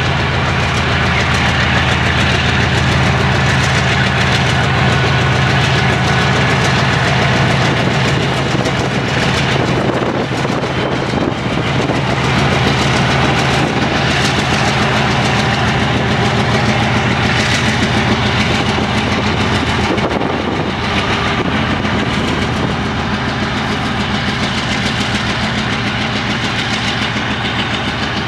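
GE C36-7i diesel locomotive's V16 engine running under load as it pulls a freight train away, its low drone easing somewhat after the first several seconds. The freight wagons rumble as they roll past behind it.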